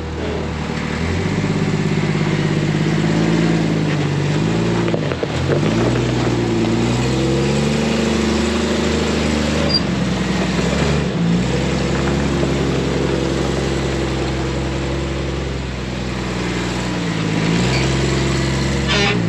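Rock-crawling buggy's engine revving up and down as it climbs over a rock ledge, the pitch rising and falling every few seconds with brief drops off the throttle.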